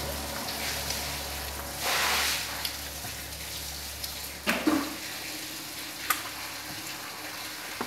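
Homemade borax slime being squished and kneaded by hand: a continuous wet crackling, with a louder squelch about two seconds in and two sharp clicks later.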